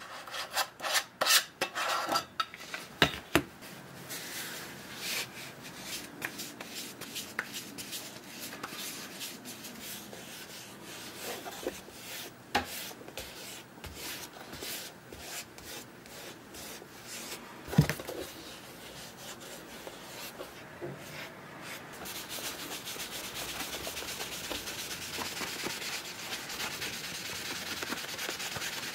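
Cotton cloth rubbing mirror-gloss wax polish onto a shell cordovan leather shoe. Sharp clicks from the metal polish tin being handled come in the first few seconds, and there is one knock a little past halfway. The rubbing grows denser and louder over the last several seconds as the shoe is buffed.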